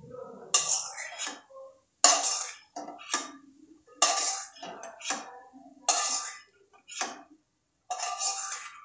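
A steel spoon scrapes and clinks against a kadhai while fried diced potato is scooped out, about nine sharp strokes a second or two apart.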